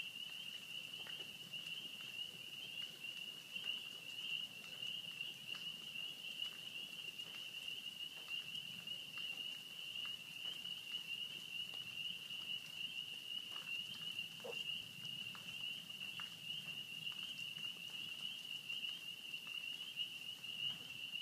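Light rain falling in scattered pattering drops, over a steady high-pitched drone.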